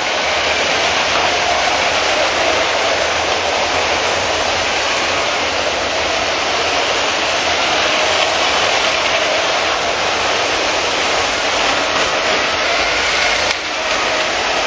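Several LEGO trains running at once on plastic track, their small electric motors (9V and Power Functions) giving a steady whir with a faint wavering whine, dipping briefly near the end.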